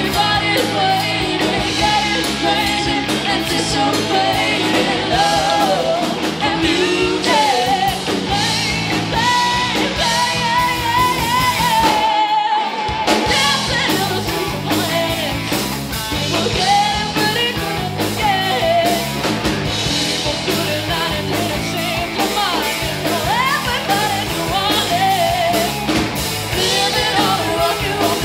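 Live rock band playing: a woman singing lead over distorted electric guitars, bass and a drum kit. The band stops for a moment about twelve seconds in, then comes back in.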